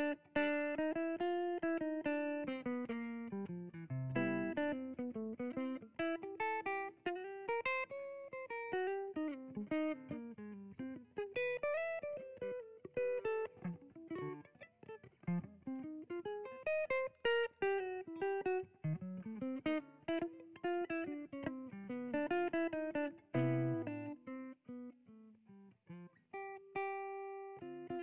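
Solo Benedetto Bravo archtop jazz guitar played with a pick: quick single-note lines winding up and down, with a chord struck near the end.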